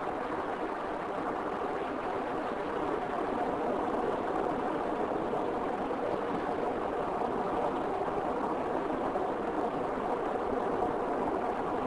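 Steady road and tyre noise of a car driving at road speed, an even hiss-like rumble with no change in pace.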